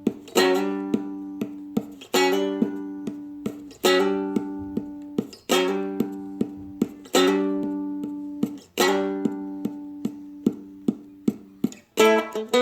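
Seagull Merlin stick dulcimer strummed, a strong chord about every second and a half ringing out over its drone strings, with lighter strokes in between. Near the end it changes to quicker picked notes.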